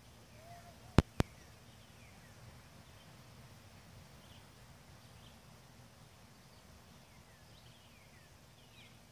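Two sharp cracks a fifth of a second apart about a second in, an arrow shot from 50 yards striking the target butts. Faint bird chirps come and go over a low steady outdoor hum.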